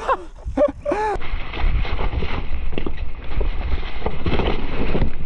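Mountain bike clattering down a rough, wet trail, its tyres and frame rattling and knocking over rocks and roots. There are a few short vocal cries from the rider about a second in.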